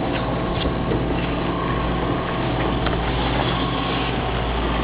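Fishing boat's motor running steadily, a low even hum under a constant rushing noise.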